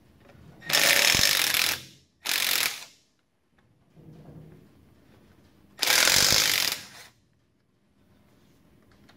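Milwaukee cordless impact wrench hammering in three bursts, two close together about a second in and a third about six seconds in, as it loosens nuts on the truck's rear axle and brake backing plate.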